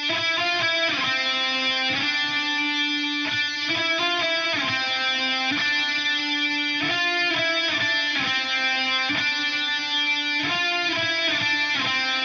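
Music: a lone guitar playing the opening melodic riff of a black metal track, one note after another with no drums.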